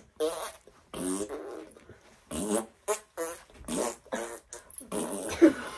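A run of about ten short, wordless vocal noises in quick succession, each pitched and bending with a breathy rasp.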